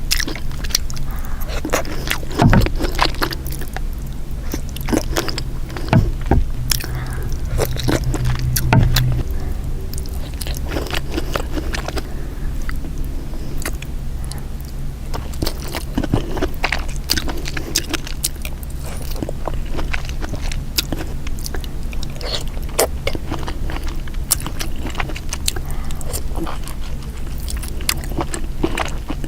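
Close-miked eating sounds from a seafood boil: chewing and biting, with many small clicks and smacks, over a steady low hum.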